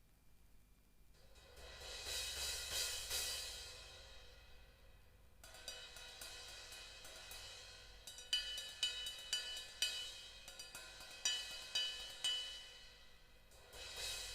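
19-inch Sabian HHX Omni cymbal being played: a wash builds from about a second in and dies away, then a run of sharp stick strikes with louder accented hits, and another swell near the end.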